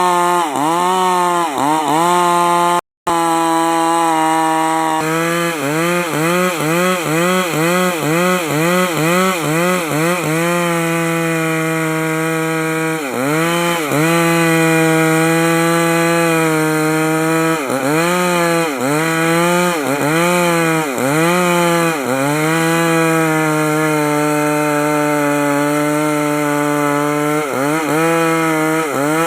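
Stihl two-stroke chainsaw running at full throttle, cutting a log into timber. Its pitch dips and recovers about twice a second as the chain bites into the wood, then holds steadier for several seconds in the middle.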